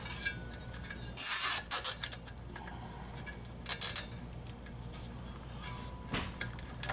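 Nylon zip ties being pulled tight around a power-supply capacitor: a loud rasping zip about a second in, then a few short clicks and rasps later, with light clinks of the sheet-metal case being handled.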